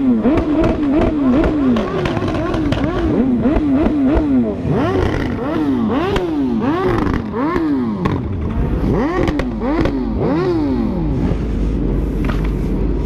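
Several four-cylinder sport motorcycle engines revving, their pitch rising and falling in repeated throttle blips about twice a second, overlapping one another as the bikes pull away at low speed.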